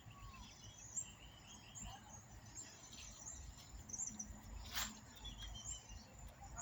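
Birds chirping with insects calling, faint, over a low rumble; a short sharp click or brush about five seconds in.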